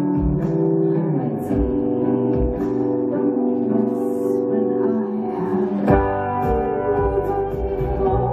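Live electric guitar through an amplifier, playing sustained, ringing chords, with a new chord struck hard about six seconds in.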